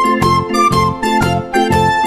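Background instrumental music: a tune of quick, evenly spaced notes over a steady bass line.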